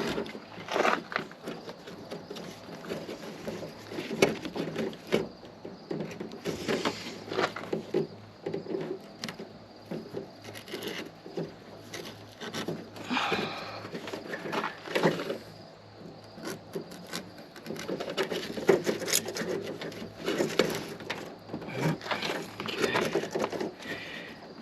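Hands working on a car's windshield washer hose and its plastic fittings: irregular clicks, taps and scrapes of plastic being handled and pried.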